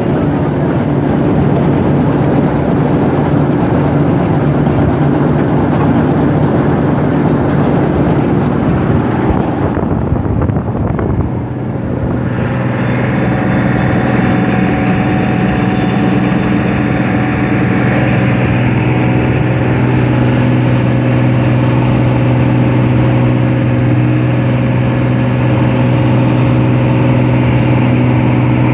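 Claas Dominator combine harvester running while harvesting grain: a loud, steady drone of engine and threshing machinery. About eleven seconds in the sound dips briefly, then settles into a steadier hum with clearer tones.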